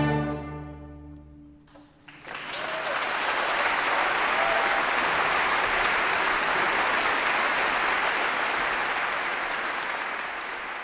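A children's orchestra's closing chord rings and fades away, then after a brief hush the audience breaks into steady applause.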